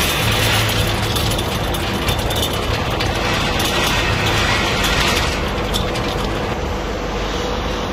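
Nut-processing machinery running steadily, including a stainless-steel inclined chain-plate conveyor lifting almonds, with a constant low motor hum under the mechanical noise.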